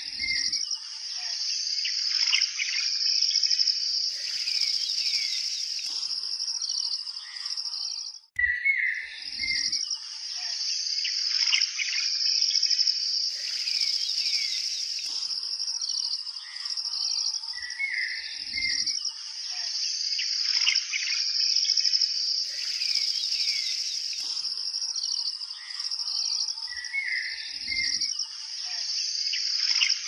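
Nature sound track of birds chirping and calling over a steady high insect trill, without speech. The same stretch repeats about every nine seconds as a loop, with a brief dropout about eight seconds in.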